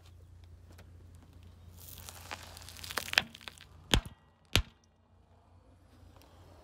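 Car tyre rolling slowly over liquid detergent pods on asphalt: a rising gritty crunch under the tread, then the pods burst in four sharp pops about two, three, four and four and a half seconds in, over a low steady hum.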